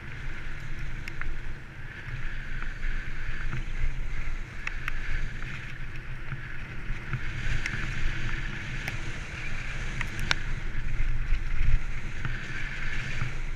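Wind rushing over the microphone of a camera on a bicycle rolling downhill, with a low rumble from the tyres on rough ground and a few sharp rattles and clicks from the bike over bumps.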